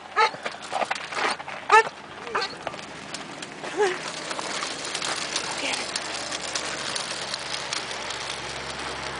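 Corgi barking several short, high yips over the first few seconds, then a steady gritty rolling noise as its dog wheelchair's wheels run over the gravelly pavement.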